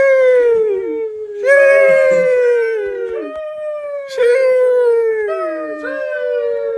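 A dog howling: a run of long, overlapping howls, each starting high and sliding down in pitch.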